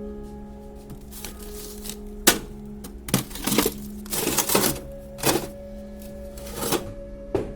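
Soft background music with held notes, over an irregular run of sharp clicks and knocks that starts about two seconds in.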